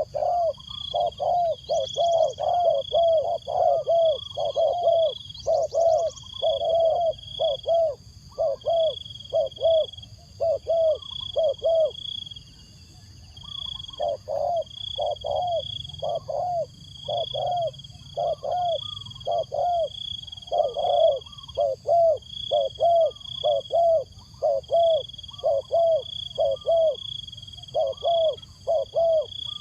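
Spotted dove cooing over and over in quick low notes, with a pause of about a second and a half around the middle. It is a decoy bird calling to lure wild doves.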